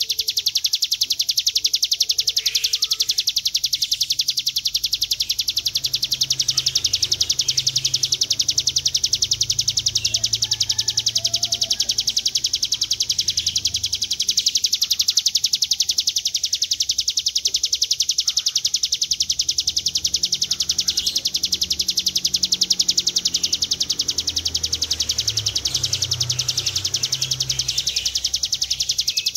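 Ciblek gunung, a prinia, singing its long unbroken high buzzing trill ('ngebren'): a very rapid rattle of notes that runs on steadily without a break.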